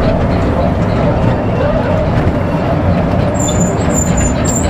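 Kiddie amusement ride running, a steady loud rumble. From about three seconds in there are short, high, repeated squeaks.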